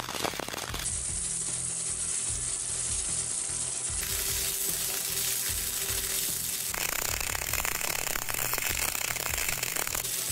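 CO2 gas-shielded semi-automatic welding arc on thick steel plate, set at about 310 amps: a steady, dense crackle and sizzle with spatter.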